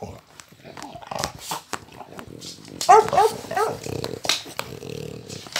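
Dogs playing over a rubber chew toy: short, high, yipping barks, with a quick run of about four about three seconds in, and growling between them.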